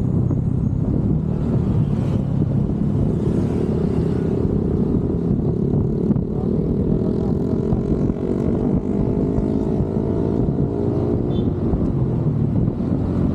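Motorcycle engine running at road speed, with a steady rush of wind and road noise. From about four seconds in the engine note climbs gradually as it speeds up, then fades back into the steady noise.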